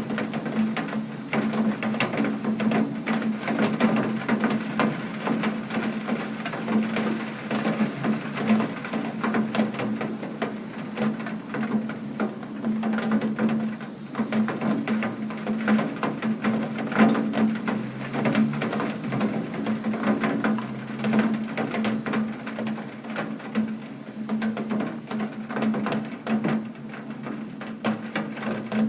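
Steady heavy rain: a dense, irregular spatter of drops striking a surface, with a steady low hum underneath.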